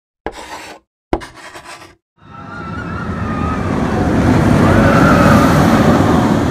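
Intro sound effects: two short sharp hits in the first second or so, then a noisy swell that builds over several seconds and peaks near the end.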